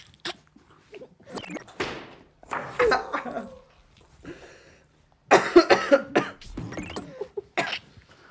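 People coughing and spluttering in short, irregular bursts, the sound of laughter being held in, with the loudest cluster about five seconds in.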